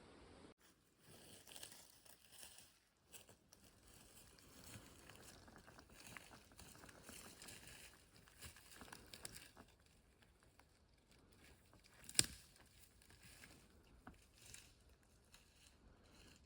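Faint, irregular rustling and crunching of footsteps and handling in forest litter, with one sharp click about twelve seconds in.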